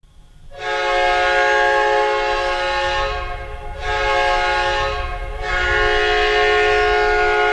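Hockey arena goal horn of the Winnipeg Jets (1992-93) blowing a chord of several notes at once, in three loud blasts: a long one, a short one, then a long one that is still going at the end.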